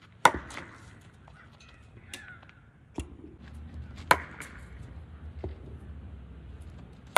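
Cricket bat striking the ball: two loud, sharp cracks, about a quarter of a second in and about four seconds in, with a couple of fainter knocks between.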